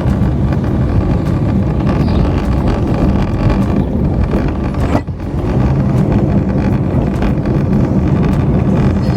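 Car driving on, with steady road and engine noise and wind buffeting the microphone; the noise dips briefly about halfway through.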